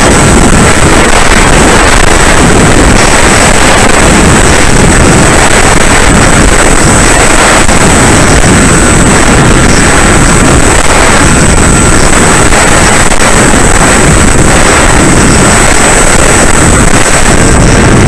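Loud, constant wind noise rushing over the microphone, with a thin steady high-pitched whine.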